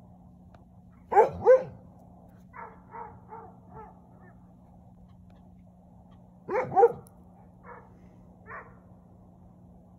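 A dog barking: two loud double barks, about a second in and again a little past six seconds, each followed by a few softer short calls, over a steady low hum.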